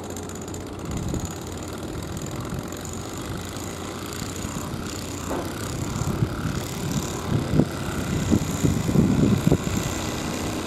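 Electric train noise in a rail yard: a steady rumble and hiss, with irregular low knocks that grow louder over the second half.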